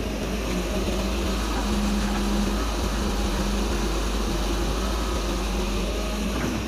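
Kobelco K909 hydraulic excavator's engine and hydraulics running under load as the arm lifts and swings a full bucket of rocky soil, a steady drone that grows louder for a moment about two seconds in.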